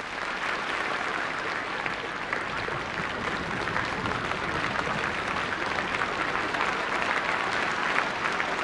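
Large hall audience applauding steadily at the end of a speech: many hands clapping together in a dense, unbroken wash.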